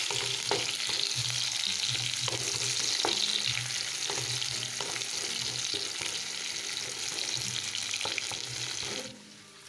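Sliced onions and green chillies sizzling in hot oil in a nonstick wok, with a wooden spatula stirring and knocking against the pan about once a second. The sizzling stops abruptly near the end.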